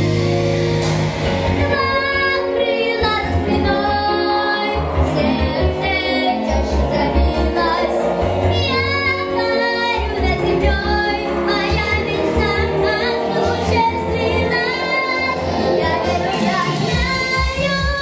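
A boy singing a pop song in Russian into a microphone over backing music, his voice coming in about two seconds in.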